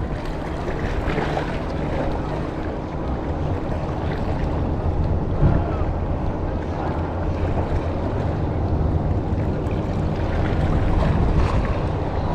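Steady wind rumbling on the microphone over the low wash of the sea against shoreline rocks.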